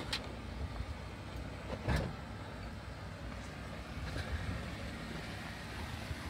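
Jeep engine running low and steady while crawling slowly over the rocky off-road trail, with two sharp knocks about two seconds apart.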